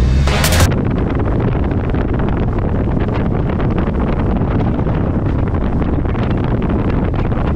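Wind blasting the microphone on a Lund fishing boat running fast across open water: a steady heavy rush, with the hull and spray under it. A last bit of music cuts off abruptly under a second in.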